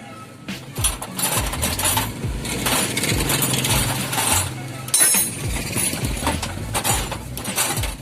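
Metal tools and engine parts clinking and knocking against each other in quick, irregular strikes, as an engine is being taken apart by hand. Voices or music sound underneath.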